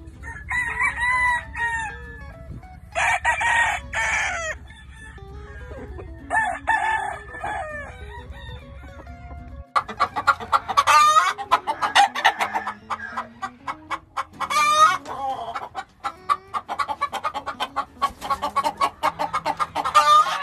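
Doc Robinson gamefowl roosters crowing: three separate crows over a steady low hum in the first half. After a sudden change about ten seconds in, a dense run of clucking and crowing from several birds close together.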